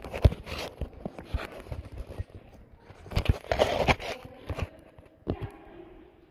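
Footsteps scuffing and crunching on a gritty paved walking trail, uneven rather than in a steady rhythm, with indistinct voices of other people briefly a little past the middle.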